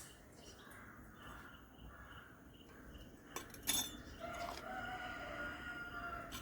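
A couple of sharp knocks about three and a half seconds in, then a rooster crows once, a long call of about two seconds.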